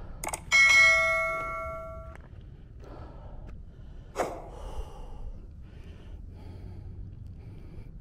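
Subscribe-button sound effect: a click and a bright bell ding about half a second in, which rings out for about a second and a half. Another sharp click comes about four seconds in, over a low steady rumble.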